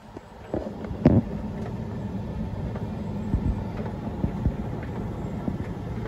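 Hoover condenser tumble dryer running: a steady motor hum with scattered knocks, the sharpest about a second in.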